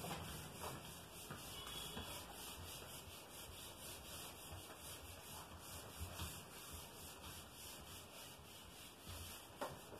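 Faint rubbing of a duster wiping marker writing off a whiteboard.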